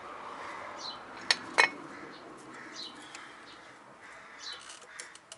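Two sharp clicks about a third of a second apart as the brake parts are handled, with short bird chirps now and then in the background.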